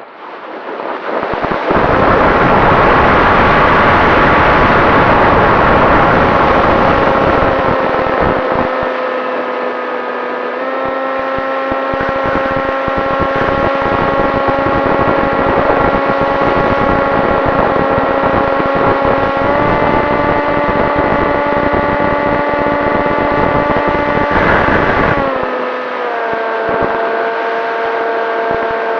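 Flitetest Spear flying wing's electric motor and propeller running under throttle, mixed with wind rush and buffeting. The steady whine swells up about a second in, steps up in pitch twice and drops back near the end.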